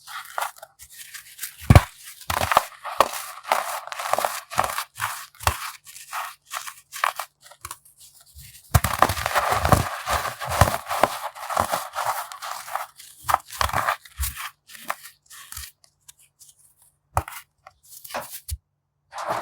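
Dried, compressed baking soda being crushed: irregular crisp crunches and crackles, thickest for a few seconds in the middle and thinning out toward the end.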